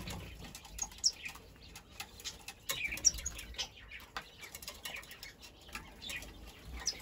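A zebra dove chick being handled and turned over in the hand: feather rustling and fluttering mixed with irregular short, high chirps and light clicks throughout.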